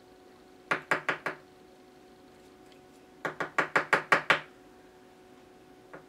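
Small sharp metal clicks and taps from a Zippo lighter being handled during flint replacement: a quick run of about four, then a run of about seven a couple of seconds later.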